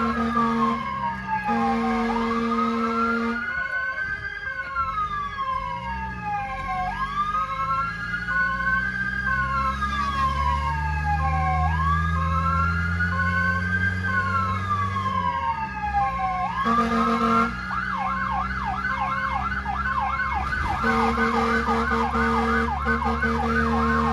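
An emergency vehicle's electronic siren responding to a fire call. It gives a slow rising and falling wail about every five seconds, then about two-thirds of the way through switches to a fast yelp. A steady low horn-like tone sounds on and off over it, with the vehicle's engine running underneath.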